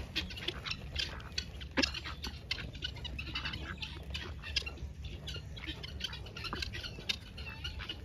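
Ducks and helmeted guineafowl pecking and dabbling at feed scattered on the ground: a dense, irregular patter of quick clicks from their bills striking the dirt, with a few brief bird calls.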